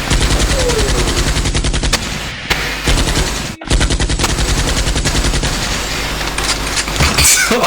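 Machine-gun sound effect: rapid automatic fire in long strings of shots, broken by a short gap about three and a half seconds in.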